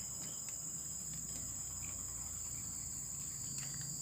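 Steady, high-pitched insect chorus in tropical forest, the constant buzzing of crickets or similar insects.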